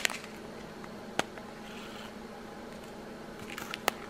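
A low steady hum with two sharp clicks, one about a second in and one near the end, as clear plastic zip bags of diamond painting drills are handled.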